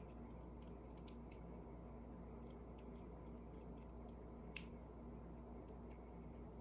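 Faint, irregular metallic clicks of a lock pick and tension wrench working the pins inside a lock, with one sharper click about four and a half seconds in.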